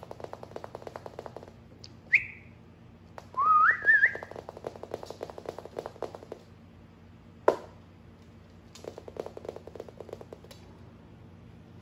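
A person whistling to call a puppy: a short high whistle about two seconds in, then a longer rising, wavering whistle. Under and between the whistles come quick runs of light clicks from the puppy's claws on a laminate floor as it trots, and one sharp click just past the middle.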